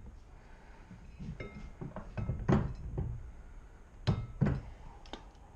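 A few separate knocks and light metallic clinks, some briefly ringing, from tools and metal parts being handled, loudest about two and a half seconds in and twice around four seconds in.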